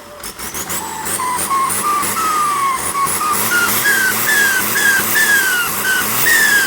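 Holset H1C turbocharger whistling through a quick run of throttle blips, a few short whistles a second, each one dropping slightly in pitch. The whistle climbs higher across the run as the engine revs build, over the engine's own low running sound.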